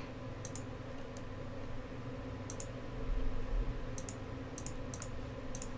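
Computer mouse clicking: several short, sharp clicks, some in quick pairs, spaced irregularly over a faint steady hum.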